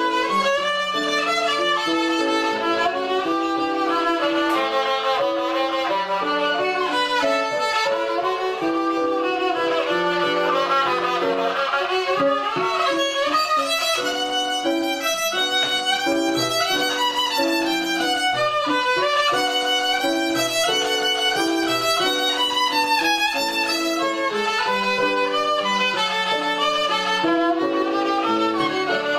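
Solo violin, bowed by a seven-year-old first-year pupil, playing a lively melody of short notes that change several times a second.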